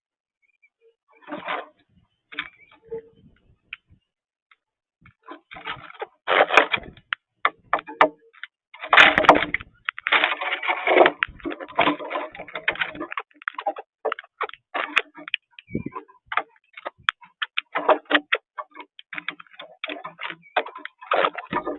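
A flock of cowbirds calling at feeders: many overlapping clicks and short rasping chatters, sparse at first and crowding together from about six seconds in.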